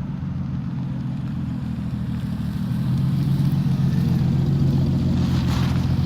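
A car being driven: a steady low engine and road drone that gets louder about three seconds in as it picks up speed.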